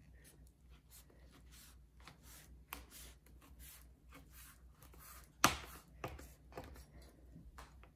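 Large kitchen knife cutting down through rolled, unbaked phyllo pastry in a metal sheet pan: a string of soft crunching taps, with one louder knock a little past halfway.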